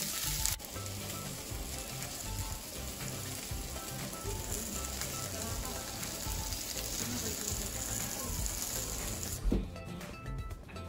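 Asparagus and red onion sizzling steadily as they sauté in a frying pan, with background music under it. A single thump about nine seconds in, after which the sizzling stops and only the music remains.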